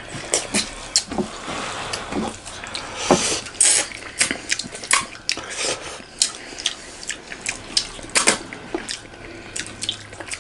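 Close-up wet eating sounds: irregular mouth clicks, lip smacks and chewing of rice and fish curry, with fingers squishing and mixing food on metal plates.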